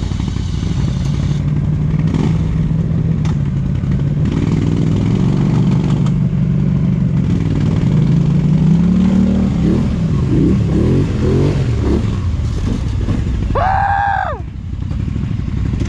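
ATV engine running steadily at low revs, its pitch climbing about eight to nine seconds in and then revving up and down unevenly. A short voice cuts in near the end.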